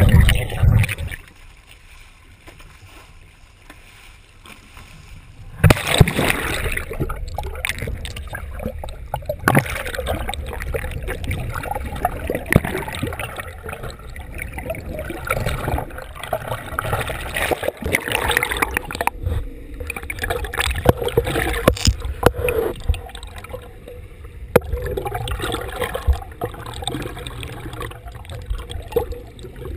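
Water sloshing and gurgling around a camera held just below the sea surface, with scattered knocks and splashes. It drops much quieter about a second in and comes back loud at about six seconds.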